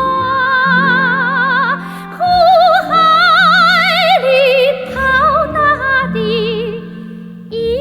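Music from an old Chinese popular song: a high melody of held notes with wide vibrato over a steady low accompaniment.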